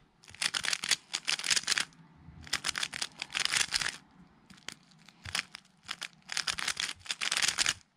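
MoYu RS3M 2020 magnetic 3x3 speedcube being turned fast through an Nb-perm algorithm: dense rapid clicking and clacking of the layers, in four bursts of about a second and a half each with short pauses between. There are brief stalls where the turns lock up.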